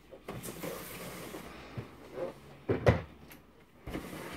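Cardboard box rustling and scraping as a vacuum cleaner is lifted out of it and set down, with several dull knocks, the loudest about three seconds in.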